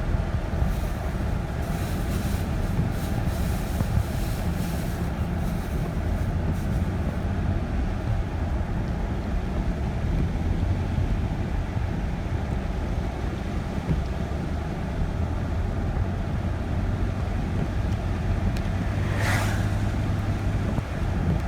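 Steady road noise inside a moving car on a rain-wet road: a low engine and tyre rumble, with a brief hissing swish near the end.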